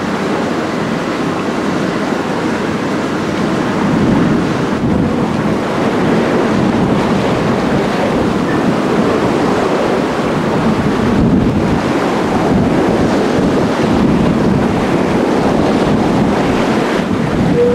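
Steady rush of sea water breaking and foaming along the steamship's hull as she steams ahead, mixed with wind buffeting the microphone.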